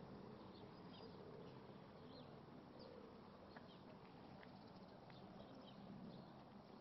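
Quiet outdoor ambience, near silence, with faint scattered chirps of small birds.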